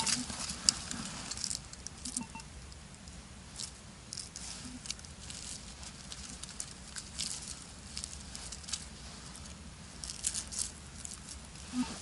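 A gloved hand scraping and breaking up loose forest soil and dry leaf litter: crumbly rustling and crackling in bursts. A metal detector gives a couple of faint short beeps early on.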